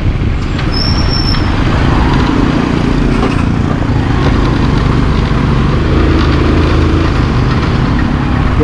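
Motorcycle engine running steadily at a low, even cruise with road noise, heard from the rider's own bike.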